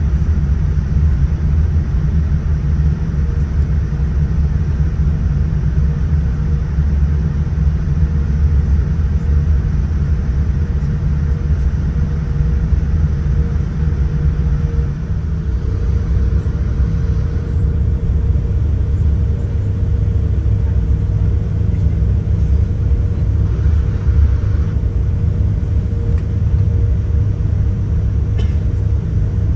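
Steady low rumble heard inside the cabin of a Boeing 787-9 as it taxis, engines at low power, with a faint steady hum over it. The rumble shifts slightly about halfway through.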